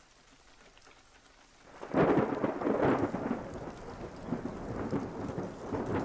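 Rolling thunder with rain, starting suddenly about two seconds in, loudest at the start and then slowly fading.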